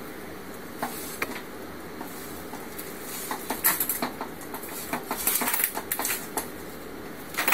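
Clattering and knocking from a remote-controlled lawnmower built on a motorized wheelchair base as it is driven hard around a shop floor, its zip-tied frame rattling. Scattered knocks early on thicken into a quick run of clatter in the second half, with one louder knock near the end.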